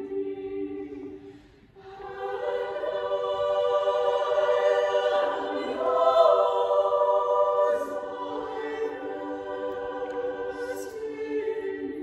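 High voices of a small choir singing a cappella in long held notes, with a short break for breath about one and a half seconds in, then swelling to their loudest around the middle before easing off.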